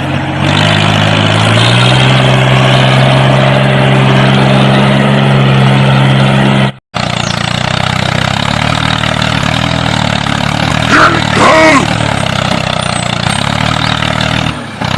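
Truck engine running steadily, its pitch rising briefly about a second in; it cuts off abruptly about seven seconds in and is followed by a rougher engine sound, with a few brief high gliding sounds about eleven to twelve seconds in.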